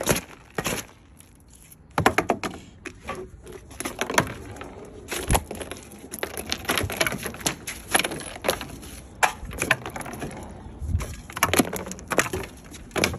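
Ice chunks being broken and knocked about on a wooden deck: an irregular run of many sharp cracks and knocks.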